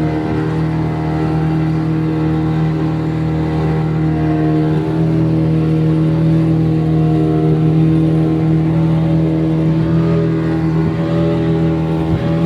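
Boat engine running steadily at an even speed, a loud, constant drone.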